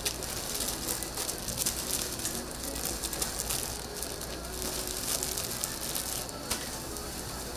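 Food sizzling and crackling on a hot griddle, with a sharp click about six and a half seconds in.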